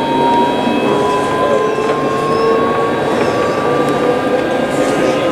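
Alstom Citadis tram heard from inside, its electric traction drive whining with a pitch that rises slowly and steadily as the tram gathers speed, over a steady rumble of wheels on the rails.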